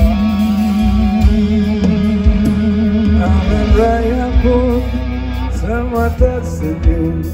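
Live rock band playing an instrumental passage: a lead guitar melody with bent notes and vibrato over drums and bass, heard through the concert PA.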